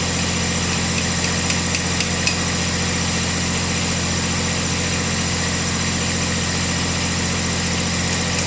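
Cub Cadet 1772 garden tractor engine running steadily at idle, the hydrostatic drive near neutral with the wheels off the ground. A few light clicks come about a second or two in.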